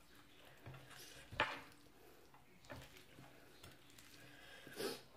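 Quiet mealtime sounds of tableware being handled while eating, with a few short knocks: the loudest about a second and a half in, another near the end.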